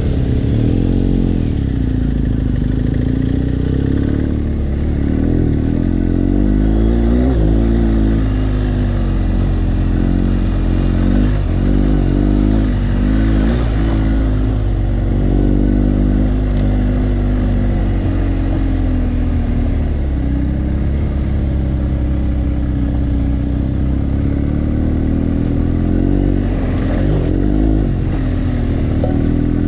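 BMW R1250GS Adventure's boxer-twin engine running under way, the revs rising and falling again and again with the throttle and gear changes.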